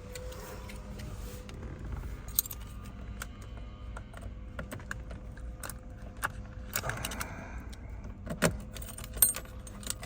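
Keys jangling on a ring, with scattered sharp metallic clicks, as a newly cut key is worked in a Porsche 911S ignition lock.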